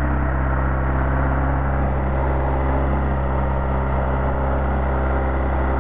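Freshly rebuilt Mercedes-Benz 190SL 1.9-litre four-cylinder engine running steadily at about 2000 rpm during its break-in run.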